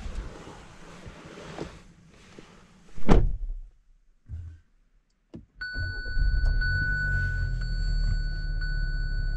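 Car sounds: rustling and handling noise, then a car door shutting with a loud thunk about three seconds in. After a short quiet gap a steady low rumble starts a little past halfway, with a steady high tone and a faint tick about once a second over it.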